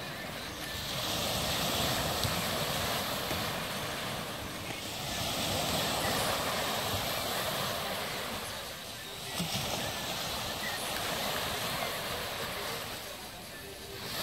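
Small waves washing onto a stony beach, the rush of surf swelling and fading about every four seconds.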